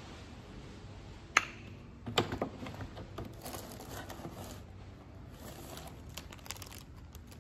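Handling noises of small plastic items: a sharp click about a second and a half in, then a short clatter and scattered lighter knocks and rustles as a red plastic funnel is picked up and turned over in the hand.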